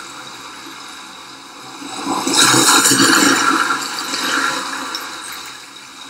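Rushing water swelling to a loud surge about two seconds in, then slowly fading away.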